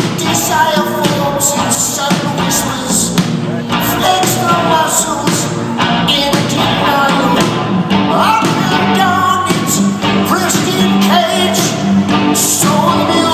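Live rock band playing an instrumental passage at full volume, without sung words.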